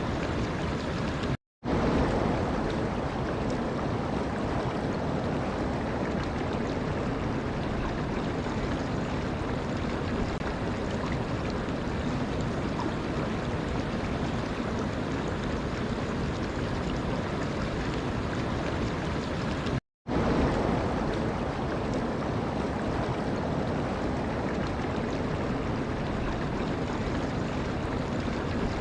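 Steady rush of running water, an even noise without a beat. It cuts out completely for an instant twice, about a second and a half in and again near twenty seconds, then resumes.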